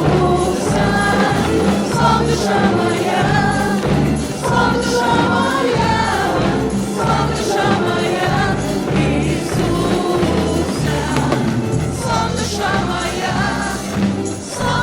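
Church worship music: a group of singers over a band with a steady bass beat.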